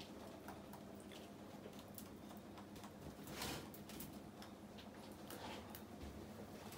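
Faint scattered clicks and small rustles, with a brief louder rustle about three and a half seconds in, over a low steady hum.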